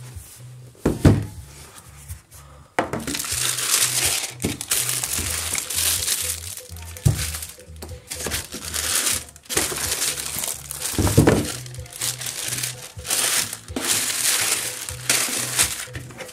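Tissue paper and plastic shoe bags crinkling and rustling as shoes are handled and lifted out of a shoebox, with a soft thump about a second in and another about eleven seconds in. Background music with a repeating bass line plays under it.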